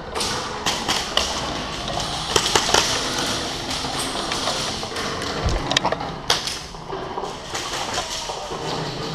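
Scattered sharp clicks and taps at irregular intervals, typical of airsoft guns firing semi-auto and BBs striking, with a small cluster about two and a half seconds in, over a steady background din.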